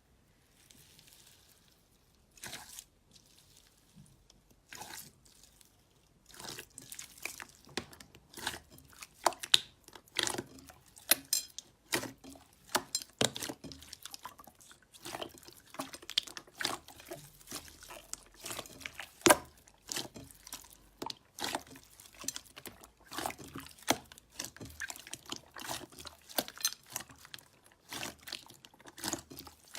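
Slime being squished and worked: irregular wet clicks and pops, a few scattered ones at first, then coming rapidly from about six seconds in.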